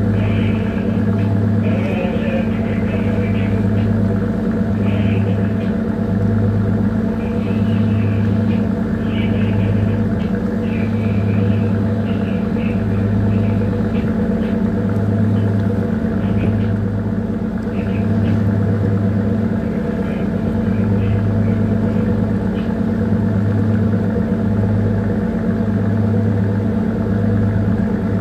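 Bunker tanker's diesel engine running steadily underway, a deep drone whose low hum swells and fades about once a second. Brief higher hissy patches come and go over it.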